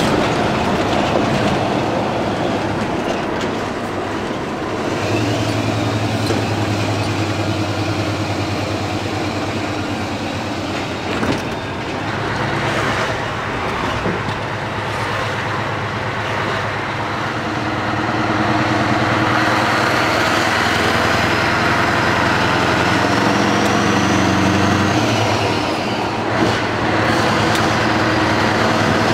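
Scania R500 V8 truck engine running under way, heard from inside the cab as a steady low drone mixed with road noise. A high whine climbs slowly in pitch through the second half and drops away a few seconds before the end.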